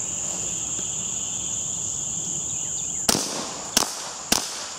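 Suppressed Ruger 10/22 rifle firing subsonic .22 LR: three quick shots about half a second apart, starting about three seconds in. A steady high insect drone sounds underneath.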